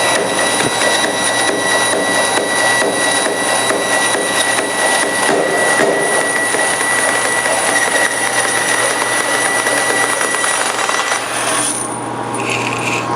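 Forrest Manufacturing 2054R traveling-table bandsaw cutting through a roll of thin plastic thermoforming sheet: a loud, steady cutting noise with a constant high whine. About twelve seconds in, the cutting noise drops away and a lower hum remains.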